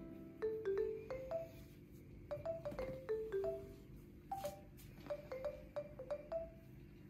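Light background music: a sparse tune of single struck notes, a few a second, each dying away quickly.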